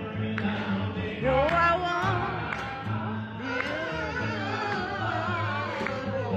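A man singing solo to an upright double bass, the bass holding low notes that step from one to the next, the voice coming in about a second in.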